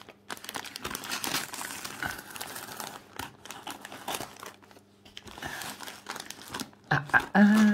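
Brown paper and plastic packing tape on a parcel crinkling, rustling and tearing as it is cut with scissors and pulled open by hand, in irregular bursts.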